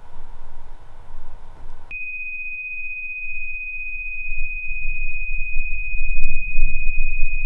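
Film sound design: a hiss over a low rumble cuts off about two seconds in and gives way to a steady, high-pitched pure tone. A low rumble beneath the tone grows louder toward the end.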